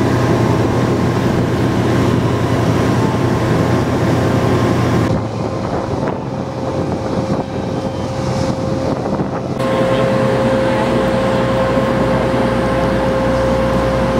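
Steady mechanical drone with a constant hum. It changes abruptly about five seconds in, turning duller, and changes back about four seconds later.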